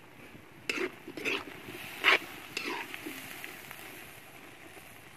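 A ladle scrapes and stirs through pieces of sea leech frying in a large metal wok, four or five strokes in the first three seconds, the loudest about two seconds in. Under the strokes the food sizzles steadily.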